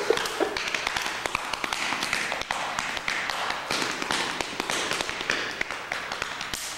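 Open-hand slaps on a person's chest as body percussion: a rapid, continuous patter of slaps.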